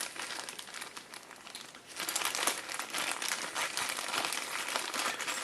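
Rustling and many small clicks of hands handling the rifle's parts, quieter for a moment about a second in.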